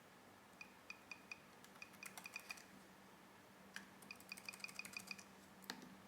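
Near silence with faint, short ticks in quick runs of about four or five a second, and a low steady hum that comes in about two seconds in.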